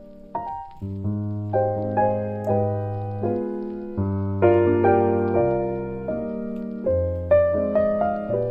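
Background piano music: chords struck every half second or so over held bass notes, each note fading after it is struck.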